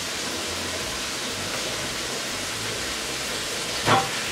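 Liver frying in hot oil in a pan: a steady sizzle, with a brief louder burst near the end.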